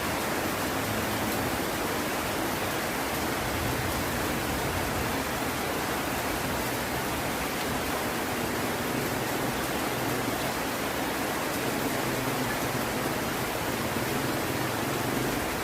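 Heavy rain falling steadily, an even hiss without breaks or claps of thunder.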